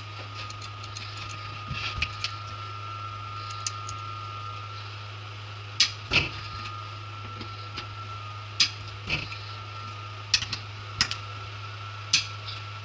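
Sharp metallic clicks from a ratcheting torque wrench as the vice hold-down bolts are tightened to 50 Nm, about ten scattered irregularly over a steady low hum.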